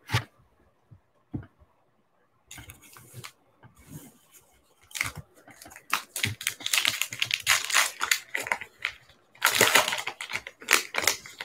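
Trading-card pack wrapper crinkling and tearing as it is ripped open and pulled apart, with one short tap at the very start.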